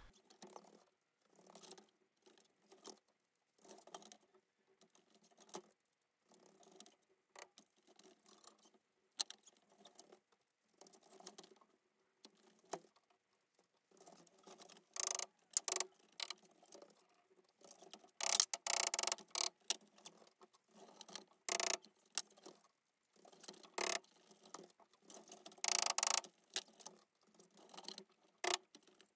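Irregular bursts of ratcheting clicks and rattles, consistent with the hand-cranked winch of a material lifter being wound to raise and settle a timber A-frame. The bursts grow louder and more frequent about halfway through.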